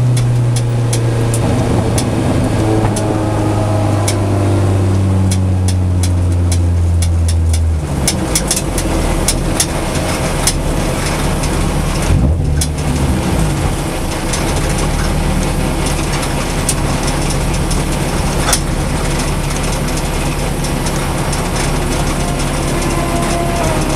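Mazda Miata race car's four-cylinder engine heard from inside the stripped cabin, its pitch slowly falling for about eight seconds as the car slows, then running at a steady low idle. Scattered clicks in the first half, and a short rev blip about twelve seconds in.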